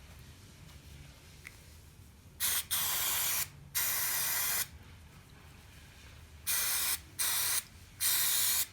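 Aerosol brake cleaner spraying in six short bursts, in two groups of three: the first starting about two and a half seconds in, the second near the end.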